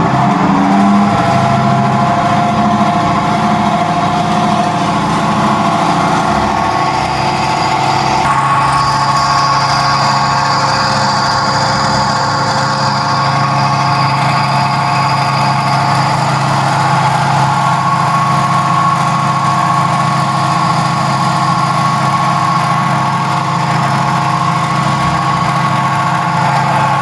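Rittal panel-mounted enclosure air conditioner running with a loud, steady humming drone made of several steady tones; the tones shift about eight seconds in. The internal unit's cooling fan is making far too much noise, the sign of a faulty fan.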